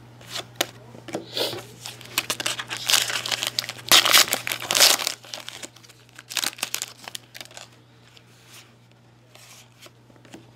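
Foil trading-card pack being torn open and crinkled by hand. The crinkling and tearing is loudest about three to five seconds in, with scattered quieter crinkles after.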